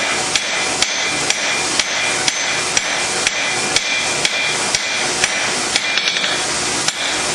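Hand hammer striking hot blade steel on an anvil at a steady pace of about two blows a second, forging the bevel of a laminated chef's knife, each blow with a short metallic ring. A quick run of lighter taps comes about six seconds in, over a steady hiss.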